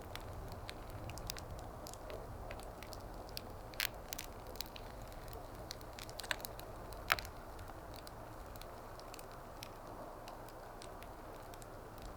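Wood fire crackling, with many small sharp pops and two louder ones about four and seven seconds in, over a steady low rushing.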